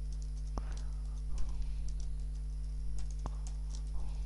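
Computer keyboard typing: irregular keystrokes, a few clicks a second, over a steady low hum.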